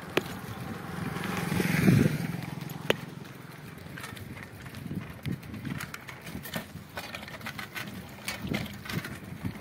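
A motorcycle passes, its engine swelling to the loudest point about two seconds in and then fading, over the scattered clicks and rattles of a bicycle being ridden.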